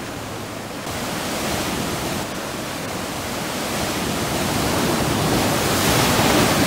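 Ocean surf washing in, a steady rushing hiss that swells louder toward the end as a wave comes through.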